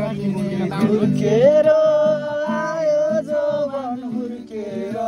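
Acoustic guitar played outdoors with a male voice singing along. The guitar chord rings for about the first second, then the voice carries on, holding one long note through the middle.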